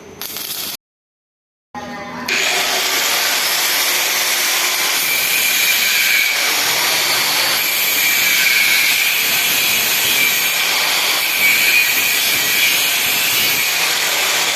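Power tool cutting into the metal gate, starting about two seconds in with a loud, steady, hissing grind.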